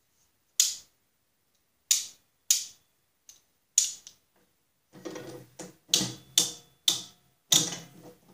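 Sharp metal clicks and clatter of pliers and steel linkage parts on a mower deck as a retaining clip is worked into place: four separate clicks, then a quicker run of clicks and rattling from about five seconds in.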